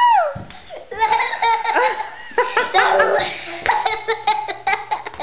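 A young girl laughing and giggling in quick bursts, opening with a high squeal.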